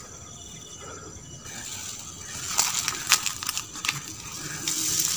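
Leaves and twigs rustling and crackling as a man pushes through dense, leafy undergrowth by hand, with sharp snaps from about halfway through.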